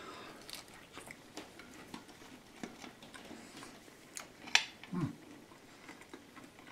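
A person chewing a mouthful of homemade pizza: faint, soft mouth and crust sounds with scattered small clicks. A sharper click comes about four and a half seconds in, followed by a short, low, falling hum.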